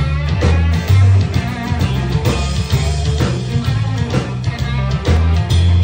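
Live band playing electric guitar, upright double bass and drum kit, with a prominent bass line and a steady beat of about two drum hits a second.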